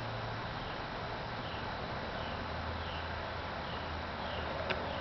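Steady outdoor backyard background noise with a low hum, faint high chirps repeating about every three-quarters of a second, and a single sharp click near the end.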